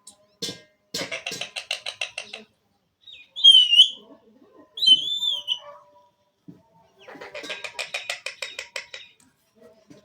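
Indian ringneck parrot calling. Two loud, shrill, wavering squawks come in the middle, between two runs of rapid chattering.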